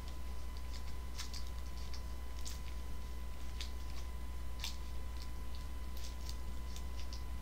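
Faint crinkling and scattered small clicks of a candy wrapper being handled and picked at, over a steady low hum.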